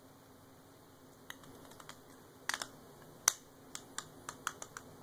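3D-printed plastic ratchet wrench being worked by hand, its ratchet mechanism clicking: a string of irregular sharp clicks starting about a second in, the loudest a little past the middle.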